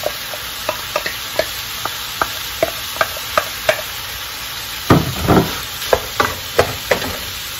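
Shrimp, carrots and freshly added rice sizzling in a wok as a wooden spatula stirs them, with a steady hiss and many short clicks and knocks of the spatula against the pan. A louder stretch of stirring comes about five seconds in.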